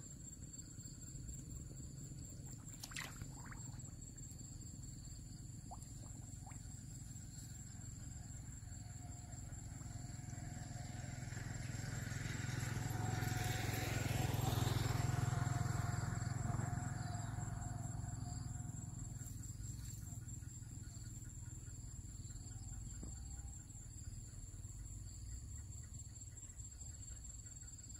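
Insects droning steadily at a high pitch, while a motor vehicle passes by, growing louder to its loudest about halfway through and then fading away.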